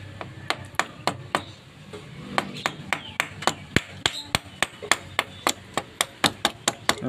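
Small metal pick tapping and chipping at the melted, holed aluminium crown of a blown Suzuki Raider 150 piston: sharp metallic clicks, a few at first, then about three to four a second from about two seconds in.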